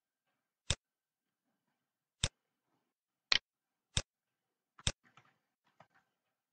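Five sharp, single clicks of a computer mouse, irregularly spaced, followed by a few fainter ticks after the last one.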